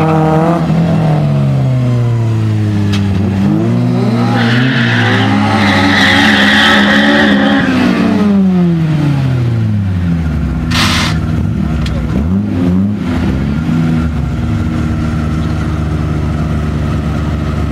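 Several car engines, Honda Civics among them, running at a drag-race start line. Their pitch falls and rises as they rev through the first half. A higher screech runs from about four to eight seconds in, and a short hiss comes at about eleven seconds. After that the engines idle more steadily, with brief revs.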